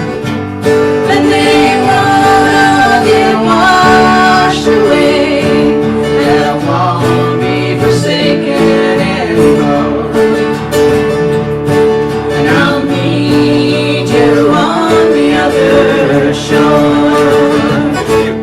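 Live band playing the closing instrumental passage of a country-style song: acoustic guitar strumming under a melody line that bends and slides above it.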